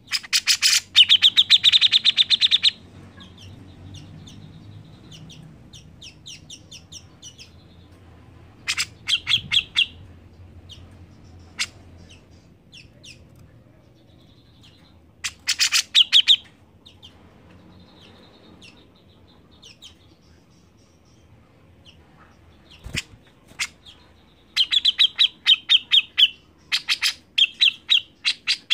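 Captive grey-cheeked bulbul (cucak jenggot) singing: loud bouts of rapid, high repeated chattering notes, each a second or two long, the longest at the start and several close together near the end, with fainter chirps in between. A single short knock about two thirds of the way through.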